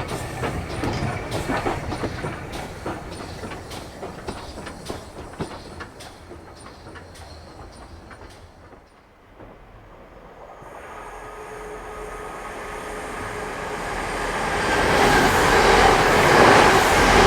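Train wheels clicking over rail joints, the clicks slowing and fading in the first half. Then a rushing noise builds steadily and is loudest near the end.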